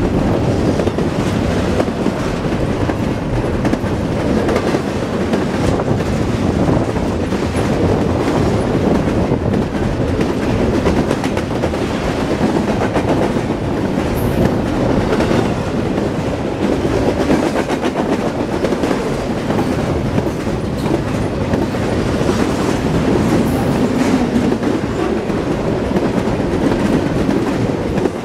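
Double-stack intermodal container train rolling past at trackside: a steady rumble and clatter of steel wheels on the rails, falling off at the very end as the last car clears.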